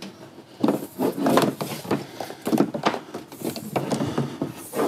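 Electrical cable being pulled off a reel and dragged around an engine bay: irregular rubbing and scraping, with light knocks, starting about half a second in.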